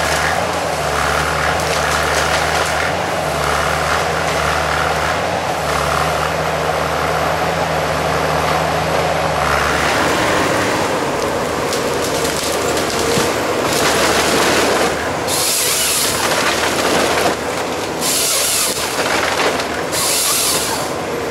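Valmet 911.3 forest harvester at work: its diesel engine runs steadily, with a hydraulic whine that comes and goes. In the second half the SP 561 LF harvester head's chain saw cuts through stems in three short bursts of hissing saw noise.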